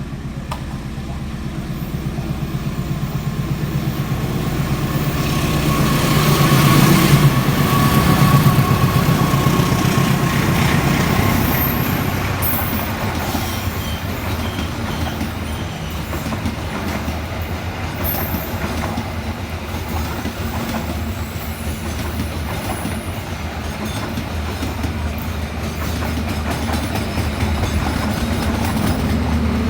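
Argo Dwipangga express train running by, a steady rumble of wheels and carriages that grows to its loudest about a quarter of the way in, then carries on clattering at an even level.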